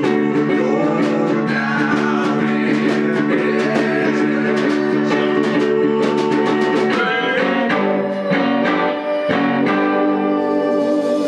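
Live blues-style band music: electric guitar and snare drum, with a harmonica blown into a handheld microphone playing long held notes over the beat.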